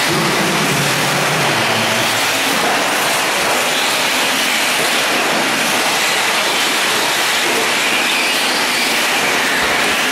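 A pack of electric 4WD short course RC trucks racing on a dirt track: a steady, loud wash of motor whine and tire noise.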